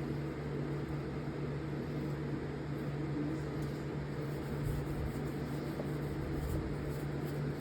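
Steady mechanical hum of a running motor, with a constant low drone.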